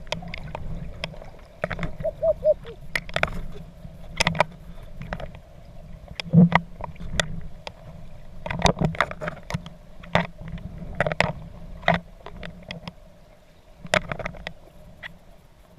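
Water splashing and sloshing irregularly, with sharp splashes about once a second over a steady low rush.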